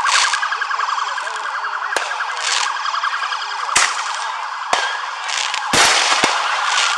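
Commercial fireworks going off, about half a dozen sharp bangs, the loudest a close burst with crackle about six seconds in. A fast warbling siren tone sounds underneath throughout.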